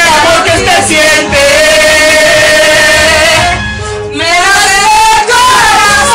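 Two women singing into a handheld microphone over loud backing music, holding long notes with a wavering pitch. The singing breaks off briefly a little before four seconds in, then resumes.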